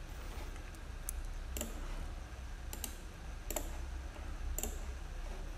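A handful of sharp clicks from a computer mouse and keyboard, about five spread over a few seconds, over a faint low steady hum.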